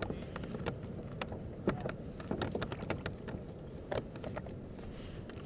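Small clicks and knocks from a kayak and its gear rocking on the water, scattered irregularly over a low steady rumble of wind and water.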